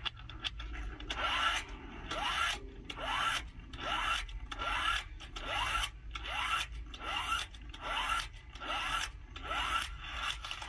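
Cheap 12-volt DC impact wrench hammering slowly on a truck wheel nut through an extension, about two blows a second, its motor whine rising before each blow. The nut has a left-hand thread, so the wrench is tightening it instead of loosening it.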